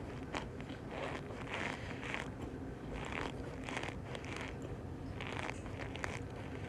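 Cornstarch crunching and squeaking in short, irregular crunches, about one or two a second.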